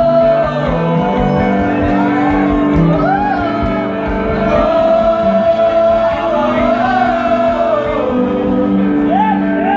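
Live rock band music: electric guitars and bass holding long notes, with singing over them.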